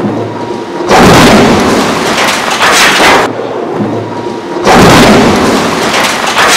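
A 56-metre chimney toppled by explosives crashing onto the ground with a heavy rumbling crash and a spray of debris. It is heard twice: a loud crash starts about a second in and lasts some two seconds, and another starts near the five-second mark.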